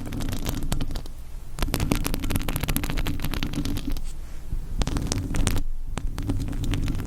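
Fingernails scratching rapidly on a surface right at the microphone, a dense run of scratchy strokes with a low rumble underneath. It comes in stretches, with short lulls a little after a second in and again near the end.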